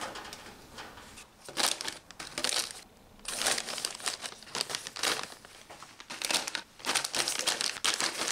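Plastic snack bags crinkling in several short spells as they are stood upright into clear plastic storage bins.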